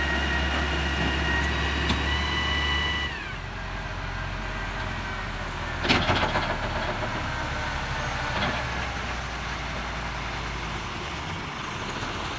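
Diesel engine of heavy machinery running, with a high whine that falls away about three seconds in as it settles to idle. A sharp metallic clank rings out about halfway through, with a lighter knock a couple of seconds later.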